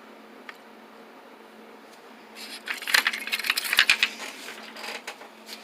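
Small hard pieces clinking and rattling for a couple of seconds, starting about two seconds in: the parts of a barrel brush kit, brass brushes among them, being handled.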